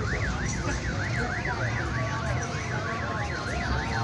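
Electronic siren warbling fast, its pitch sweeping up and down about three times a second, over a steady hubbub of crowd and traffic.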